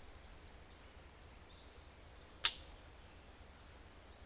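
Revolver dry-firing: a single sharp metallic click about two and a half seconds in as the hammer falls on an empty chamber, the gun being unloaded.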